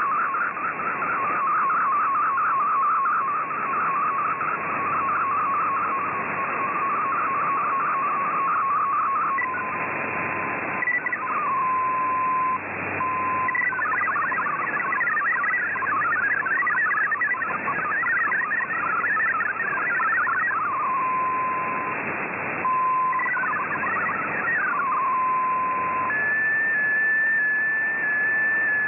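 MFSK64 digital data signal received over shortwave, tones heard through steady band hiss. First a warbling tone of a picture being sent, then a steady tone, then rapid jumbled chirping tones carrying text. Near the end a steady higher tone starts as the next picture begins.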